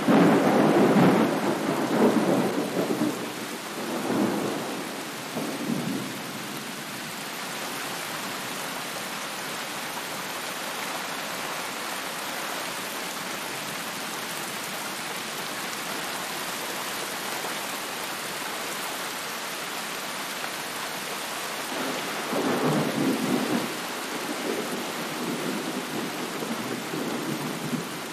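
Steady rain falling, with rolls of thunder in the first few seconds and again about 22 seconds in.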